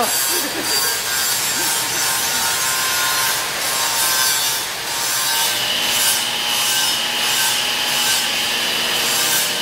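Arc welding crackling steadily, the continuous frying noise of a stick welder at work on steel. A steady high whine joins about five seconds in.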